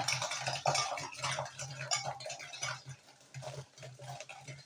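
A utensil beating raw eggs with sugar in a bowl, with quick repeated clicks and scrapes against the bowl. The strokes grow fainter in the second half. The eggs are being beaten until the mixture turns pale.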